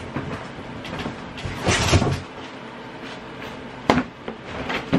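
Cardboard shoe boxes being handled: a short sliding scrape about two seconds in, then two sharp knocks of box on box near the end.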